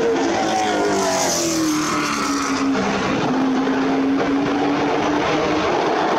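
Late model stock cars' V8 engines running at racing speed: one passes with a falling pitch over the first two seconds or so, then a steady, loud drone of engines carries on around the track.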